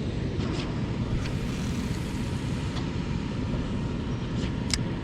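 Steady low rumble of road traffic on a busy highway bridge, with a single sharp click near the end.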